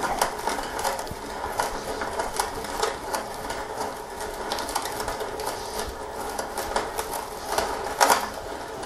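A hand brace turning a 3/4-inch Jennings-pattern auger bit as it bores a holdfast hole down into a softwood workbench apron: a steady rasping cut with a regular crunch about every half second as the brace is cranked.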